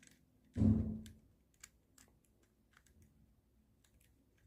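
Small sharp clicks and scratches of a metal seam ripper picking packed lint off the internal rollers of a ball mouse, a few scattered ticks a second. About half a second in comes one louder, dull thump.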